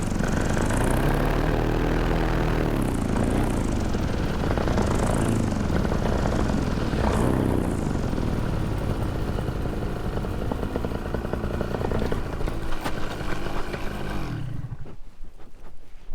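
Moster 185 two-stroke paramotor engine and propeller running in flight, its pitch rising and falling with the throttle, with wind rush. The engine sound stops abruptly near the end, leaving only faint crackling.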